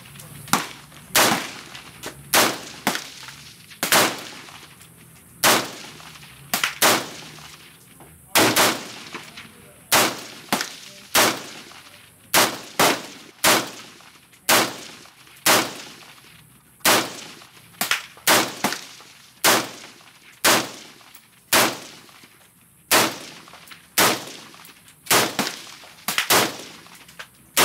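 Semi-automatic AR-15 rifle with a 20-inch M16A2 upper, 5.56 mm, firing a long string of single shots, loud and sharp with a short ring after each, irregularly spaced about a second apart with some in quick pairs.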